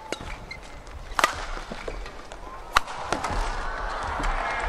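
Badminton rackets striking the shuttlecock during a rally: sharp cracks, the two loudest about a second and a half apart, with fainter hits between. Arena crowd noise swells near the end as the point is won.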